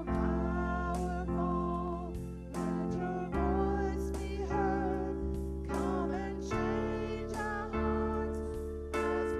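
A woman singing a solo into a handheld microphone, holding notes with vibrato, over instrumental accompaniment of sustained chords and bass.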